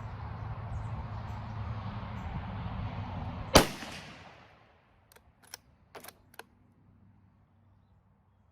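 A single shot from a Savage Axis .223 bolt-action rifle, loud and sharp with a short ringing tail, about three and a half seconds in, over a steady rushing background. About two seconds later come four quick metallic clicks as the bolt is worked to eject the case and chamber the next round.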